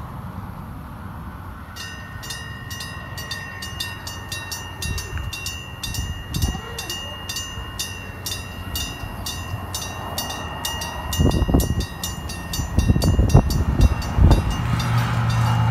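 A railway level-crossing warning bell rings in rapid, even strikes, about four a second, starting about two seconds in while the barrier arm lowers. It stops near the end. Heavy low rumbles come just before it stops, and then the steady low hum of an approaching train's engine.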